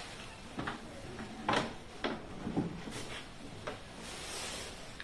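Kidney-shaped trays of a Kaff soft-close corner pull-out being pulled out and swung by hand: a series of soft knocks and clicks from the metal runners and tray rims, the loudest about a second and a half in, with a rubbing hiss near the end.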